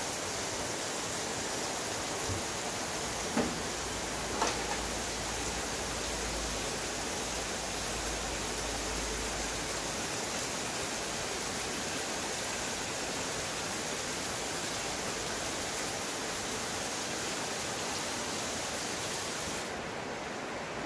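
Tap water running steadily into a bowl of blackberries in a steel sink, rinsing the berries. A few light knocks come in the first five seconds.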